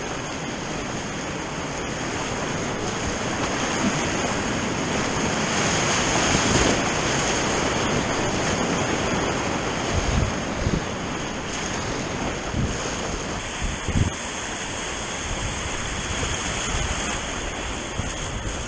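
Rushing river water, a steady loud hiss, with wind buffeting the microphone and a few dull thumps.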